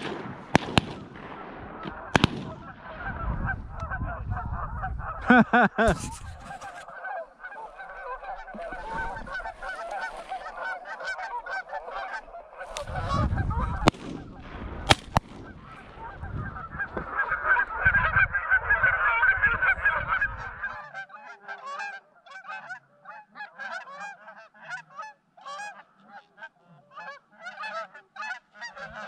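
A flock of Canada geese honking, many calls overlapping, swelling to its loudest a little past the middle and then thinning out into single honks. There are a few sharp clicks and knocks, and stretches of low rumbling noise.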